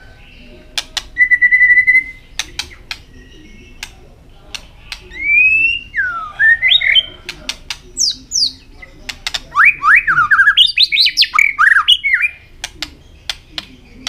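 White-rumped shama singing: loud whistled phrases mixed with sharp clicking notes, including a held steady whistle about a second in and a fast run of rising and falling notes past the middle.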